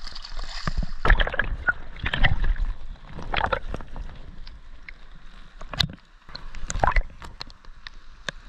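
Shallow surf water sloshing and splashing as hands dig through wet sand for tuatua clams, in irregular bursts; the camera goes under the surface at times, so parts sound gurgling and muffled.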